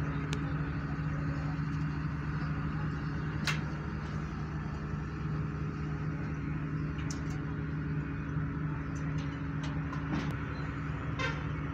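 Steady low mechanical hum with an even drone, broken by a few brief sharp clicks.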